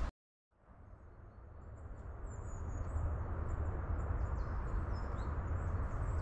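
Small birds chirping repeatedly over a steady low rumble. The sound drops out for a moment at the start and fades back in.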